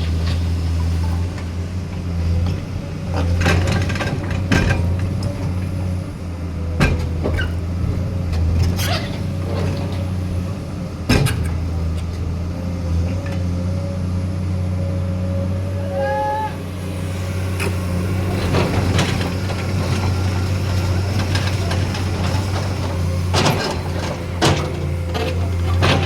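Heavy diesel engine running steadily, with scattered sharp clanks and knocks from an excavator loading a trailer. A brief high whine sounds about two-thirds of the way through.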